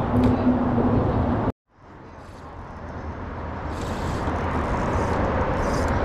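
Steady low outdoor rumble and hiss that cuts out abruptly about one and a half seconds in, at a cut in the recording, then fades back up to the same steady rumble.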